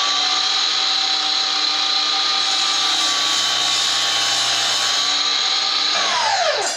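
Milwaukee M18 cordless 10-inch miter saw motor running at full speed with a steady high whine, the blade cutting through a small scrap board in the middle with a slight drop in pitch. Near the end the trigger is released and the motor winds down with a falling whine.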